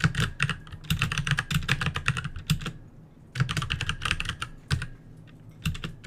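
Computer keyboard being typed on in fast runs of keystrokes, with a short pause a little past the middle and another near the end.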